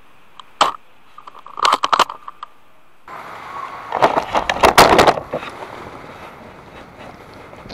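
A spring bolt-action airsoft sniper rifle fires once with a sharp crack, then its bolt is worked with a quick cluster of clicks. About a second and a half later comes a burst of loud rustling and knocking as the player and his gear scramble down behind sandbags.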